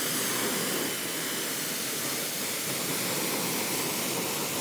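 Electric pressure washer's water jet spraying onto an e-bike's rear fat tire and wheel: a steady, even hiss of water.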